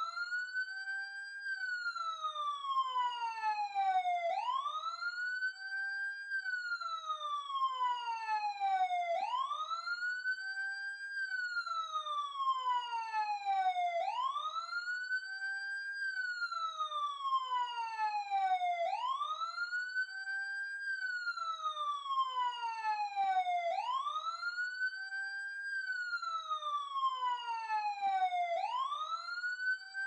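Emergency vehicle siren wailing up close: each cycle rises quickly, holds briefly at the top, then slides slowly back down, repeating about every five seconds.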